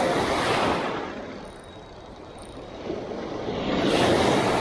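Small sea waves breaking and washing in over a rocky shallow shore: a surge fading early, then a second, louder one building about three seconds in.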